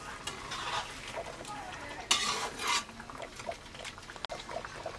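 Metal spatula stirring and scraping against a steel kadai of watery curry, in a few short strokes, the loudest a little after two seconds in.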